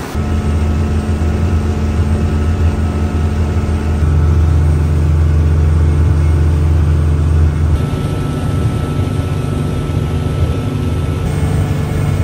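Water taxi's engine running steadily at cruising speed, a loud low drone whose pitch shifts abruptly about four seconds in and again near eight seconds.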